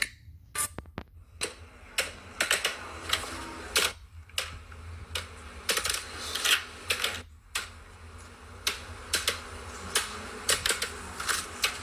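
Fidget toys clicking and tapping in quick, irregular clusters, with short pauses between runs.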